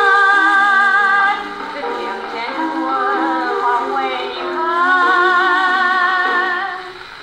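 A 1948 78 rpm record of a woman singing with instrumental accompaniment, played with a steel needle on an acoustic horn gramophone. Long notes are held with vibrato, and the sound is thin, with little bass or treble. It grows quieter near the end.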